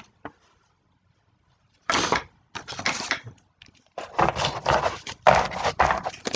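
Crackling and rustling from a cardboard baseball card box and its packaging being handled and pulled apart close to the microphone, in irregular bursts that begin about two seconds in.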